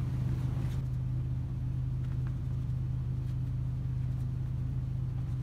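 Steady low mechanical hum, like a kitchen fan or motor, under a few faint scrapes of a spatula stirring thick egg-yolk cream in a metal pan.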